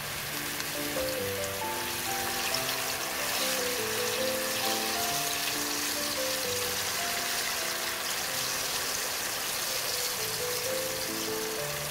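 Tofu balls deep-frying in hot oil, a steady crackling sizzle, under background music with a simple melody.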